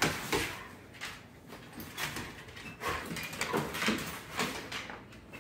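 Two dogs play-fighting on a hardwood floor: irregular scuffles and paw thumps, mixed with short animal vocal noises.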